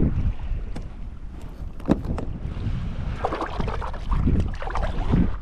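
Wind buffeting the microphone while water laps and splashes against a kayak's hull, with a few sharp knocks, the loudest about two seconds in. The splashing is strongest near the middle of the stretch.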